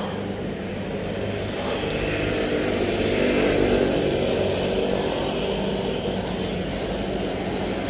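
A motor engine running steadily, growing a little louder a couple of seconds in and then easing off.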